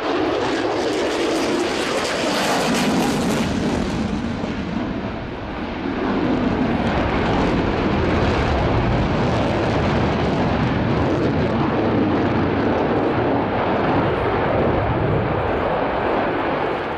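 F-22A Raptor fighter's twin Pratt & Whitney F119 turbofan engines, a loud rush of jet noise as the jet flies its display. A high hiss fades about four seconds in, leaving a deep rumble.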